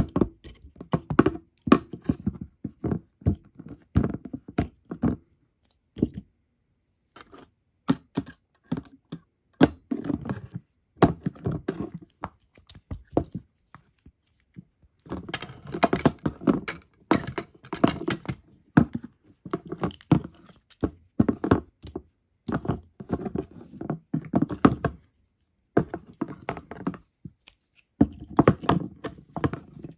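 Handmade moth figures knocked, pressed and rubbed against each other by hand: irregular bursts of tapping, knocking and scraping, broken by a few short pauses.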